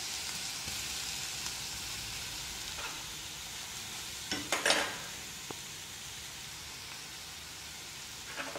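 Crushed green chillies, ginger and garlic sizzling in hot oil in a non-stick kadai, a steady hiss that slowly dies down. A steel spoon scrapes and knocks against the pan as it stirs, about four to five seconds in and again near the end.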